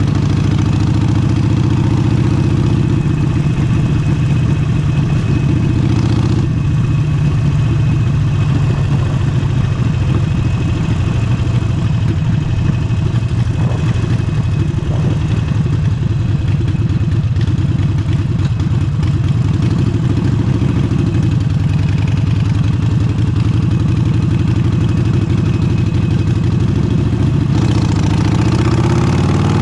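Harley-Davidson Forty-Eight's air-cooled Evolution V-twin running steadily through a Vance & Hines exhaust. Near the end the engine speed dips and then climbs again.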